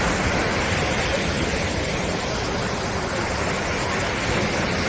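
Sea surf washing onto a sandy beach: a steady, full rush of breaking waves.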